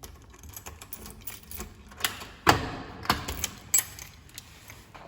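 Keys jangling and a door lock clicking as the front door is unlocked and opened, with three louder sharp knocks in the middle.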